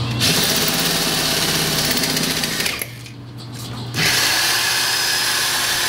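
Power saw cutting through the steel shell of an air-conditioner compressor, a loud, steady grinding rasp. It stops for about a second near the middle and then starts again.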